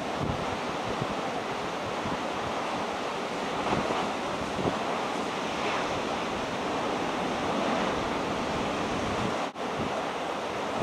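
Rough sea surging and breaking, with wind buffeting the microphone. The sound cuts out for an instant near the end.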